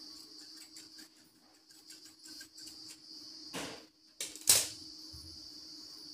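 Scissors cutting through blouse fabric, with small snipping clicks, then two louder handling noises of fabric and scissors about three and a half and four and a half seconds in, the second the loudest.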